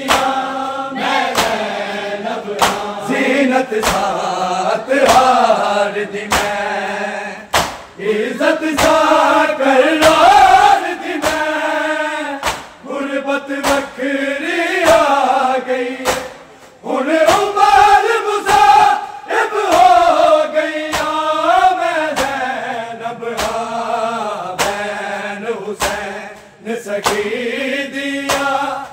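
A group of men chanting a Punjabi noha, a mourning lament, in a loud chorus with short pauses between lines. Under the chant runs a steady beat of hand slaps on bare chests (matam), about one slap a second.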